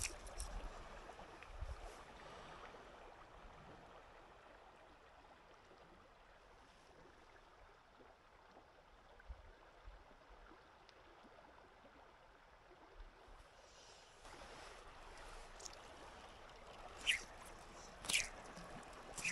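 Faint gurgle of a clear stream flowing past, growing a little fuller near the end, where a few short, sharp swishes come through.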